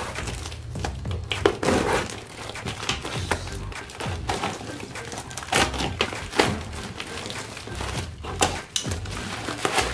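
A tape-wrapped cardboard parcel being cut open with scissors and torn apart by hand: an irregular run of crinkles, rips and knocks from packing tape, plastic wrap and cardboard, over background music.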